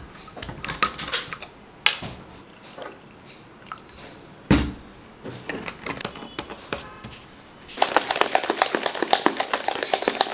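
Scattered clicks and knocks of a powder tub, scoop and lid being handled, with a sharp thud about four and a half seconds in. In the last few seconds a pre-workout drink is shaken hard in a shaker bottle, a fast, even rattle of many strokes a second as the powder is mixed.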